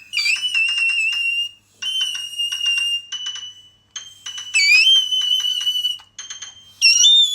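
A woman singing in the whistle register: a series of very high, thin held notes, about four attempts with short breaks between them, some sliding up into the note at the start.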